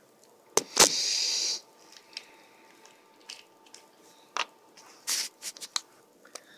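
Handling noise: two sharp clicks, then a short hiss lasting under a second, followed by scattered light clicks and taps.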